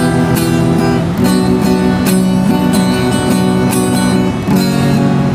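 Acoustic guitar strummed and picked by a street busker, playing an instrumental lead-in before the vocal comes in. The chords change about a second in and again near the end.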